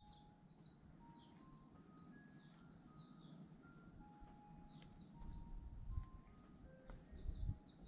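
Faint outdoor chorus of insects: a steady high-pitched trill with quick downward chirps repeating over it, and a scattering of faint short pure notes. Low gusts of wind buffet the microphone from about five seconds in.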